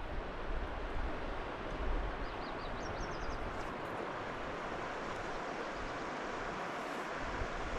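Steady rush of a river's flowing water, with a small bird giving a short run of quick high chirps about two to three seconds in.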